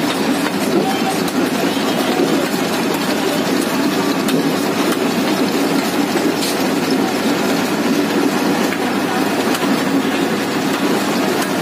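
Steady, loud background din of a busy roadside market, with a few faint knocks of a butcher's cleaver on a wooden chopping block as chicken is cut.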